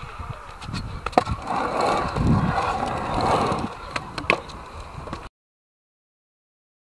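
Stunt scooter wheels rolling on a concrete skatepark bowl, in surges, with a few sharp clacks of the scooter against the concrete. The sound cuts to dead silence about five seconds in.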